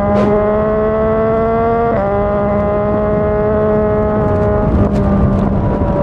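Yamaha MT-09's inline three-cylinder engine through a Yoshimura R55 slip-on exhaust, pulling under throttle with its pitch climbing slowly; a quick gear change breaks the note about two seconds in, and the note changes again near the end.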